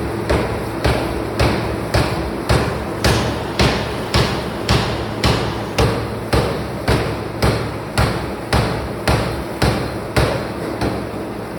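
Forging machine striking hot metal in a steady rhythm, about two blows a second, over a constant factory hum; the blows stop shortly before the end.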